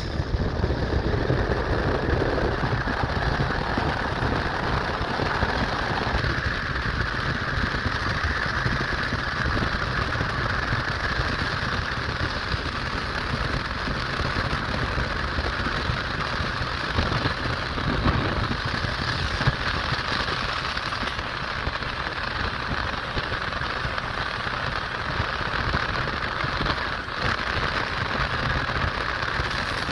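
Freight cars of a Union Pacific manifest train rolling past: a steady rumble and hiss of steel wheels on rail.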